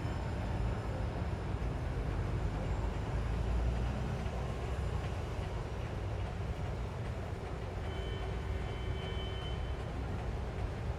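New York City Broadway street ambience: a steady low rumble of city traffic, with a brief thin high-pitched tone about eight seconds in.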